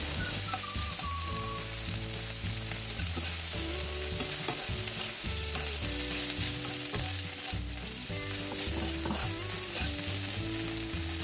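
Yellow garlic chives sizzling in hot oil in a wok, stirred and pushed about with a plastic slotted spatula. They are being fried until they wilt.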